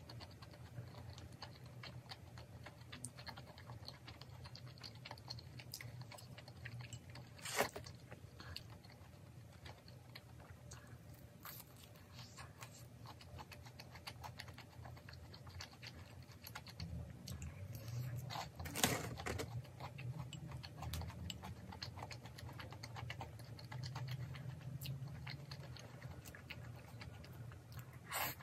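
A person eating udon noodles and fried food close to the microphone: steady chewing with many small wet clicks, and two louder sharp clicks, about a quarter of the way in and again about two-thirds in.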